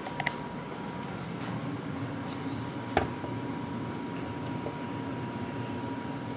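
Light clicks and one sharp metallic knock about three seconds in, from tools and garage door track hardware being handled, over a steady hum.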